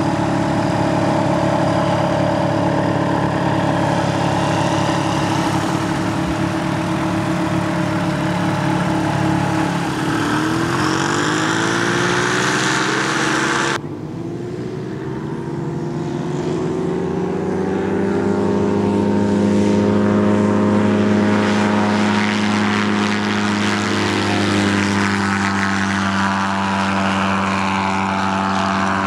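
Ultralight aircraft engine and propeller running under power. The pitch rises about ten seconds in, breaks off abruptly near the middle, then climbs steadily again as the aircraft powers up for its takeoff run and holds high.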